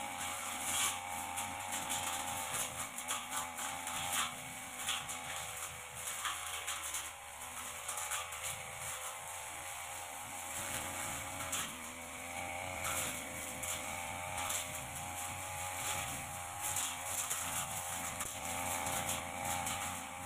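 Backpack brush cutter running, its engine note wavering up and down as the blade cuts through light grass and undergrowth. Frequent short crackling swishes as the blade strikes vegetation.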